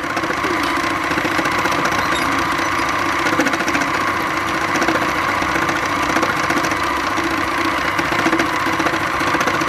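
Embellisher (needle-felting machine) running steadily, its cluster of needles punching very fast up and down through silk fabric to felt and texture it.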